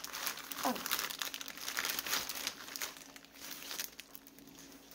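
Thin clear plastic bag crinkling as it is handled and the items inside are pulled out, busiest in the first few seconds and softer near the end.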